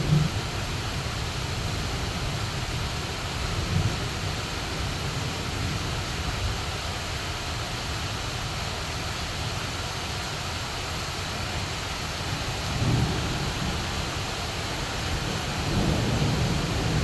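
Heavy rain pouring steadily, with low rolls of thunder rumbling in a few times: briefly about four seconds in, again about thirteen seconds in, and a longer roll building near the end.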